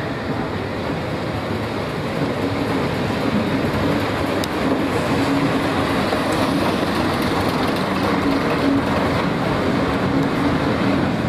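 Diesel multiple unit passing close by. Its underfloor diesel engines run with a steady hum that grows gently louder.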